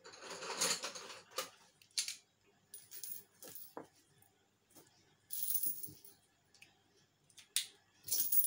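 Metal coins clinking and clattering together as they are gathered up by hand, in a longer burst at the start, then scattered short clicks, and another burst near the end.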